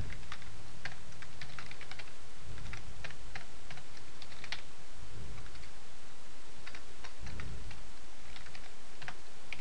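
Computer keyboard typing: keystrokes in short, irregular bursts with brief pauses between them, over a steady low hum.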